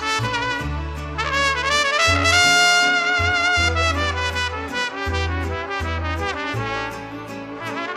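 Mariachi band playing an instrumental bolero passage: two trumpets carry the melody together over violins and low bass notes that change every second or so.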